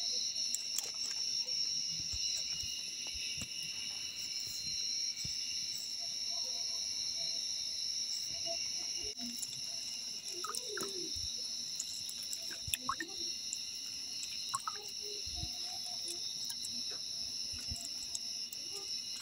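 Steady high-pitched chirring of insects, with scattered soft knocks and clicks of kitchen work.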